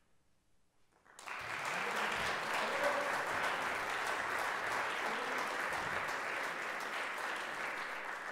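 About a second of near silence, then a concert audience suddenly breaks into applause at the end of the piece, and the clapping carries on steadily.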